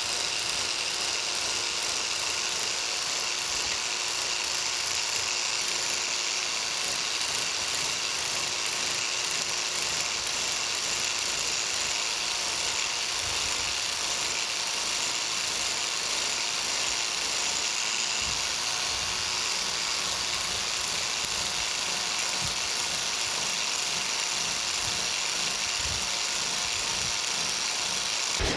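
Biax electric power scraper running steadily, its reciprocating blade scraping metal off the planer's cross slide.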